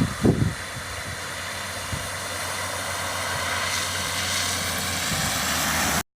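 A vehicle engine running with steady road noise, slowly growing louder, with a couple of low thumps right at the start. The sound cuts off abruptly near the end.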